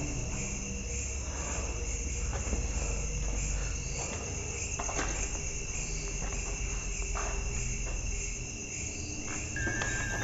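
Crickets chirping steadily in a dense night chorus, with a low rumble and a few faint knocks underneath. A steady high tone comes in near the end.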